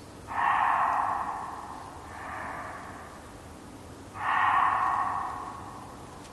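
Muntjac deer barking in the distance: two loud, hoarse barks about four seconds apart, with a fainter bark between them, carrying with some echo.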